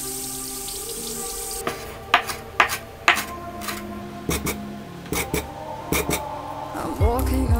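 Water rushing and bubbling around lemons being washed for about the first two seconds. Then scattered sharp clicks and knocks of a utensil against a glass bowl as softened butter, dill and lemon zest are mixed.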